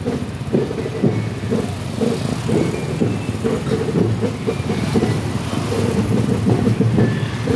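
Several motorcycle engines running as a convoy of bikes rolls slowly, a steady low rumble.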